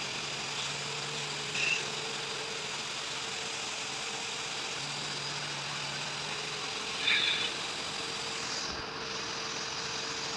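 Steady machine hum of workshop background noise, with faint steady tones running through it. Two brief higher-pitched sounds, one about 2 seconds in and one about 7 seconds in, stand out above it.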